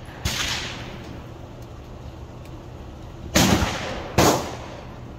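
Three gunshots on a shooting range, each a sharp crack with a short echoing tail: a lighter one about a quarter second in, then two louder ones less than a second apart around three and a half and four seconds in.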